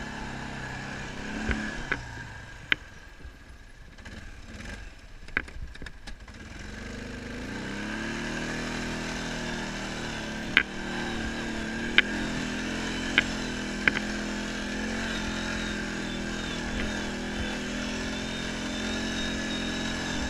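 ATV engine running on a rocky dirt trail. The engine is eased off and quieter for a few seconds, then picks up about seven seconds in and pulls steadily. Several sharp knocks are heard along the way.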